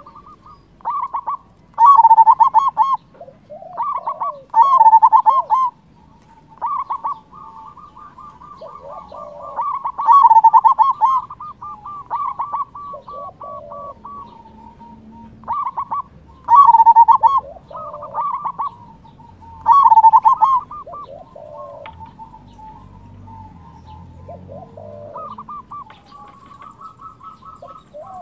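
A local zebra dove (perkutut) cooing with a big voice: rolling phrases of quick staccato coos, the loudest coming every few seconds with softer phrases between.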